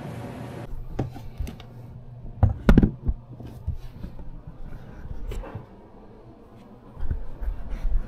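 Irregular soft knocks and bumps in a quiet room, with a louder cluster of thuds about two and a half seconds in and more low bumps near the end. A steady hum stops abruptly just under a second in.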